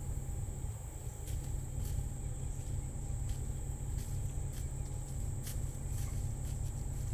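Outdoor ambience: a steady high insect buzz over a loud low rumble, with a few short sharp clicks scattered through.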